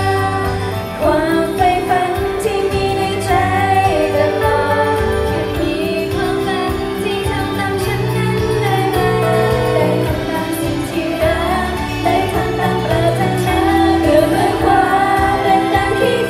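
A pop song played loud through a PA, with female idol singers' voices carrying the melody into handheld microphones.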